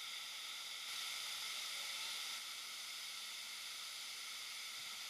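Steady rushing hiss of flowing river water over a shallow rapid.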